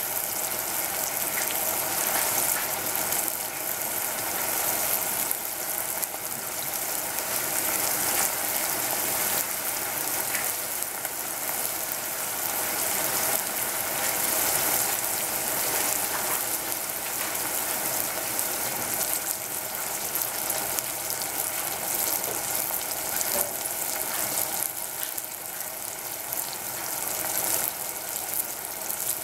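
Sliced king trumpet mushrooms frying in oil in a stainless steel saucepan on a gas burner, a steady sizzle with constant fine crackling.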